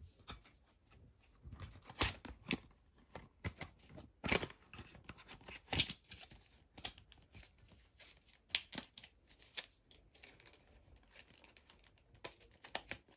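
Hands handling a makeup palette and its cardboard packaging: irregular clicks, taps and light rustling, with a few sharper knocks about two, four and six seconds in.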